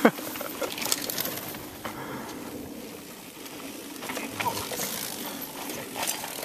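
Mountain bike ridden along a dirt forest trail towards the microphone: tyre noise and light rattling of the bike, loudest as it passes close near the end. A short falling shout at the very start.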